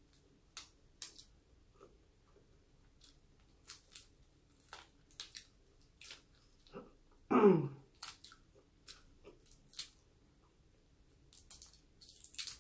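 Close-up eating sounds: chewing and the small scattered clicks and crackles of cooked shrimp being peeled by hand. About seven seconds in there is one brief, louder sound that falls in pitch.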